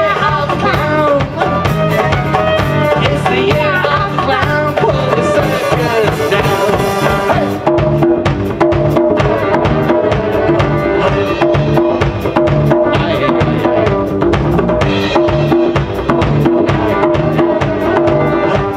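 Live folk-rock band playing an instrumental passage: a bowed fiddle melody over acoustic guitar, electric bass and a drum kit. The melody moves about freely at first, then settles into longer held notes about eight seconds in.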